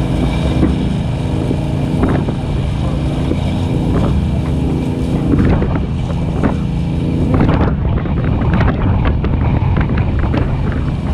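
Fire rig's engine running steadily at low speed, with scattered knocks and rattles from the truck bouncing over rough ground, most of them in the middle, and some wind on the microphone.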